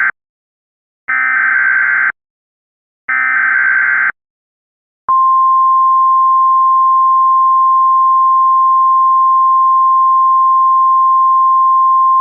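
Emergency Alert System SAME header: the end of one buzzy digital data burst, then two more, each about a second long and a second apart. About five seconds in, the NOAA Weather Radio 1050 Hz warning alarm starts, a single steady high tone that holds on and signals the tornado warning message to follow.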